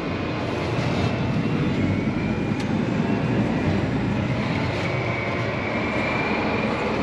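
John Deere 8R 370 tractor's diesel engine and drivetrain running steadily under way, heard inside the closed cab, with a faint high whine over it. A single click about two and a half seconds in.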